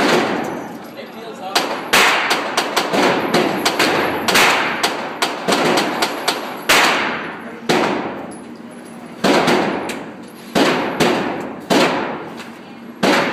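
Gunshots at a shooting range: about two dozen sharp reports, many coming in quick runs of three to five, each trailing off in a short echo.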